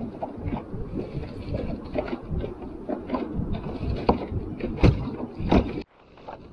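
Kayak on the water: irregular knocks and water noise, with a couple of sharper knocks near the end, then the sound cuts out abruptly about six seconds in.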